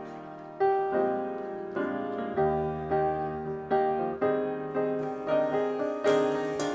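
Piano or keyboard playing chords in a steady rhythm, a new chord struck about every 0.6 seconds, each one ringing and fading.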